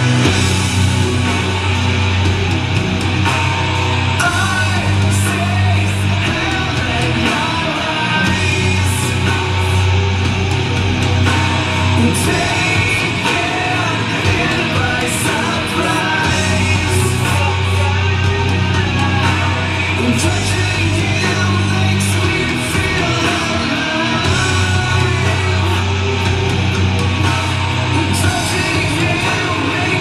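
Heavy rock song with sung and shouted vocals and a strong bass line, played loud through a Sharp XL-HF201 micro hi-fi system and its pair of bookshelf speakers, heard as room sound rather than a direct recording.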